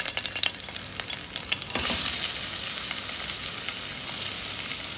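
Chopped ginger, garlic and sliced green chilli sizzling in hot oil in a pan, with many small crackles; the sizzle grows louder about two seconds in.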